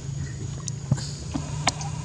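A steady high insect drone over a low hum, with two sharp clicks, about a second in and near the end.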